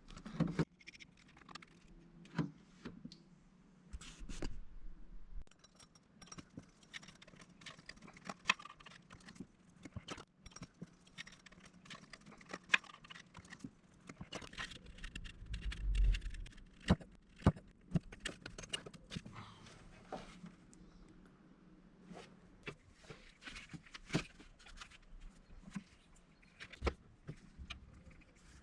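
Metal tools and parts clinking and knocking irregularly, many short sharp clicks, with a duller thud about four seconds in and another around sixteen seconds.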